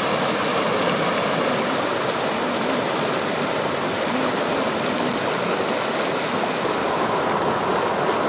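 Muddy floodwater rushing steadily over rocks, a stream swollen by heavy rain.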